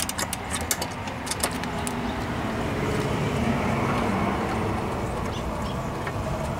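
A socket ratchet clicks a few times in the first second or so, turning a bolt on a lawn-tractor engine's blower housing. Then a steady engine drone swells and fades, like a vehicle going past.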